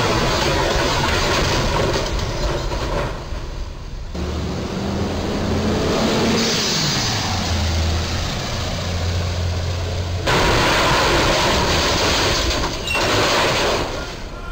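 Box truck engines and road traffic noise, with a steady low engine drone in the middle that drops in pitch partway through.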